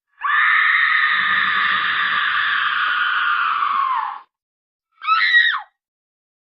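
A long, loud, high-pitched scream lasting about four seconds that sags in pitch as it ends, followed about a second later by a short cry that falls in pitch. These are sound-effect clips with dead silence around them.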